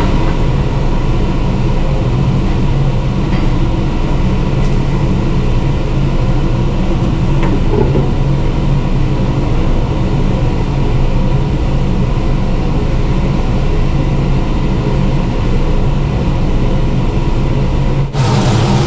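Steady mechanical drone of a ship's galley, the hum of its ventilation and on-board machinery, with a low hum beneath.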